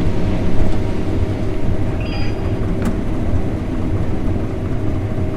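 Combine harvester's engine and threshing machinery running steadily during corn harvest, a deep drone. A short high beep sounds about two seconds in.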